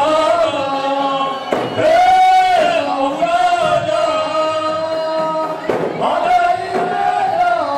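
Group of voices singing a Comorian tari dance song in long held, wavering notes over crowd noise, with a couple of sharp knocks.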